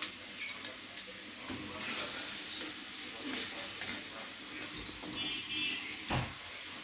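Potato fries sizzling in hot oil in a steel kadai, with a perforated steel skimmer scraping and clicking against the pan as the fries are scooped out. A thud about six seconds in.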